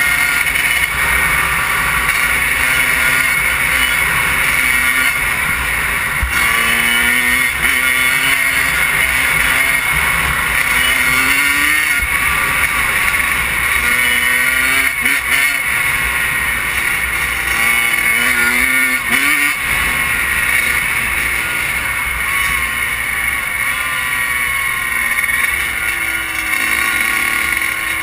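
Kawasaki KX100 two-stroke dirt bike engine pulling hard, its pitch climbing again and again and dropping back at each gear shift, then holding steadier toward the end. Wind rushes over the helmet-mounted camera's microphone.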